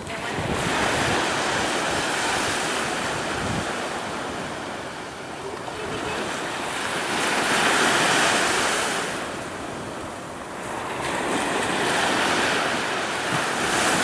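Gulf of Mexico surf breaking on the beach, a steady wash that swells and fades about three times as waves come in, with wind buffeting the microphone.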